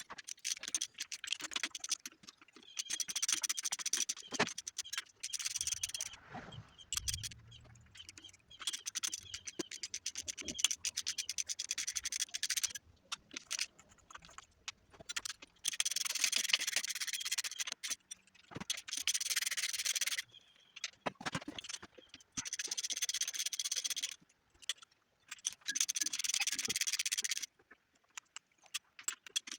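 Sped-up hand-tool work on an engine's intake manifold bolts: scraping, rubbing and fast clicking in short, choppy stretches with brief gaps between.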